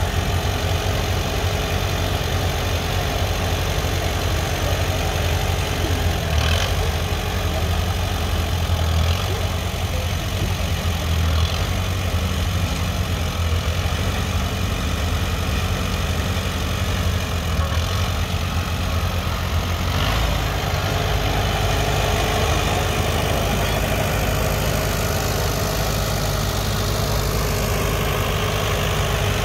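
Allis-Chalmers farm tractor engine running steadily at low speed as the tractor is driven slowly. The engine note shifts slightly about two-thirds of the way through.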